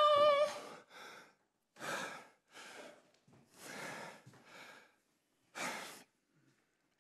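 A man's held vocal note breaks off about half a second in, followed by about six heavy, airy breaths roughly a second apart as he gets his breath back after a vigorous dance.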